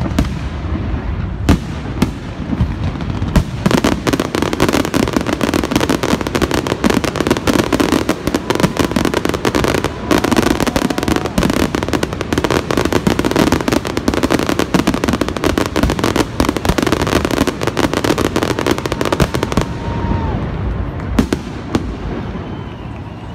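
Aerial fireworks shells bursting: a few single booms at first, then from about three seconds in a dense, rapid barrage of bangs and crackles that thins out near the end.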